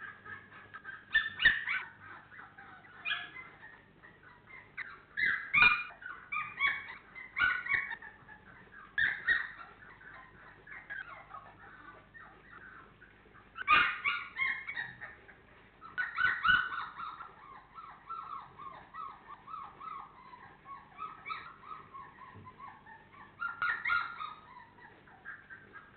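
A litter of four-week-old Labrador Retriever puppies whimpering and yipping in short clustered calls, with one long whine falling in pitch from about sixteen to twenty-one seconds in. A few sharp knocks sound among the calls.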